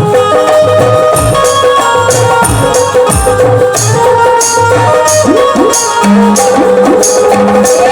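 Instrumental folk-song music: a sustained melody over a steady beat of drums and regular high percussion strokes, with no singing.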